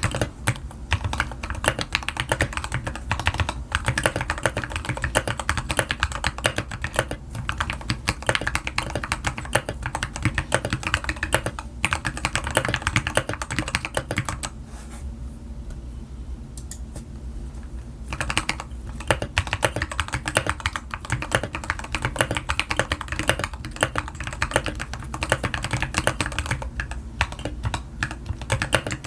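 Continuous fast typing on a mechanical keyboard with Gateron Milky Yellow Pro linear switches, XDA keycaps, lubed Durock stabilizers, a silicone-filled case and a tape-modded PCB, giving a dense stream of keystroke clacks. The typing thins out to lighter, sparser keystrokes for a few seconds about halfway through, then picks up again.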